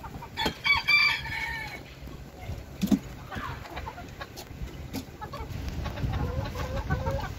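A rooster crows once, about half a second in, a short crow of about a second and a half that falls away at the end. A sharp thump comes about three seconds in, and chickens cluck softly, with low murmuring clucks near the end.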